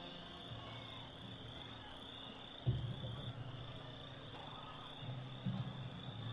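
Quiet open-air stadium ambience: a faint, steady high-pitched chirring over a low hum that comes and goes, with a single thump about two and a half seconds in.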